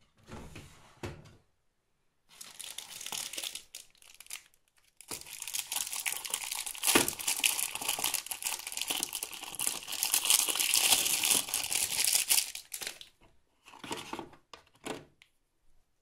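Plastic film wrapper of laundry detergent tablets crinkling as it is handled and torn open. It comes in short bouts, with one long stretch of about eight seconds in the middle.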